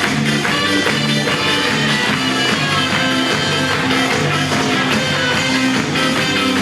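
Instrumental music with a guitar and a steady beat.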